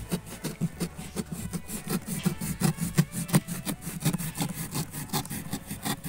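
Fast back-and-forth scraping on a cardboard box, several short rough strokes a second.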